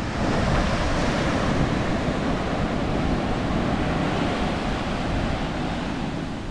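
Ocean surf breaking and washing up a sandy beach, a steady rush of waves.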